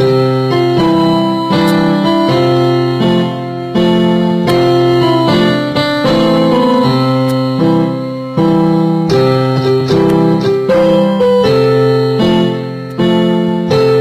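Background piano music: sustained chords with a melody on top, new notes struck about once a second.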